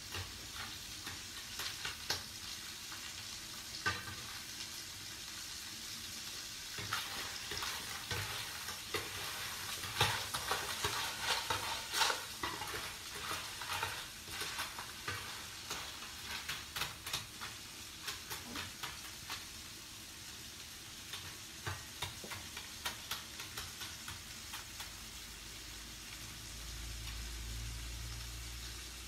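Clams sizzling in hot oil in a nonstick frying pan, stirred with a metal wok ladle until their shells pop open. The ladle and shells clack and scrape against the pan again and again over a steady sizzle.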